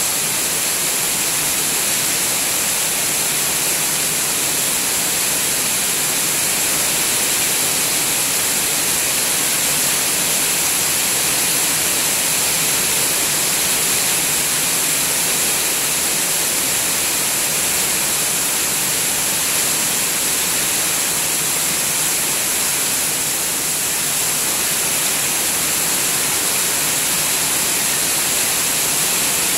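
Heavy rain pouring down in a steady, loud hiss, with no let-up.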